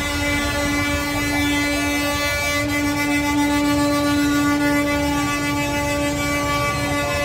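A truck's horn held down in one long, steady tone over the low rumble of a passing garbage truck.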